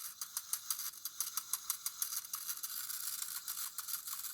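Soviet Slava mechanical alarm clock's winding key turning, its ratchet giving a quick run of small, sharp clicks as the spring is wound.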